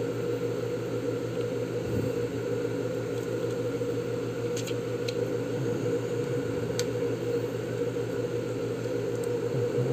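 A steady low mechanical hum, with a few faint clicks about halfway through.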